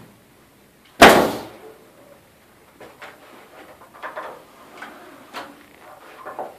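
Pneumatic nail gun firing once about a second in, driving a nail into the wooden arch: a sharp crack with a short hiss of exhaust air. Faint knocks and rattles follow.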